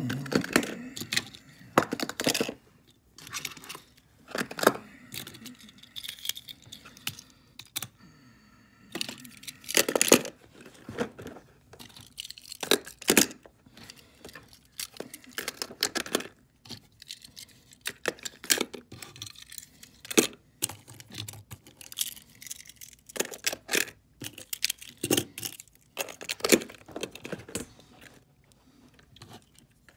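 Die-cast toy trucks and a clear plastic storage case being handled on a tabletop: irregular small clicks and clacks of metal and plastic.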